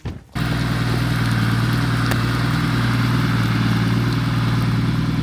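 Four-wheel-drive's engine running steadily at a low, even pitch, coming in abruptly just after the start, with an even hiss over it.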